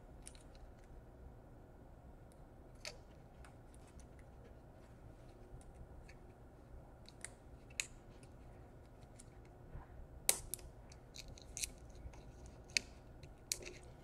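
Faint scattered clicks and light scrapes of fingers and a small screwdriver tucking a power jack cable into place inside an open laptop, with a cluster of louder clicks from about ten seconds in.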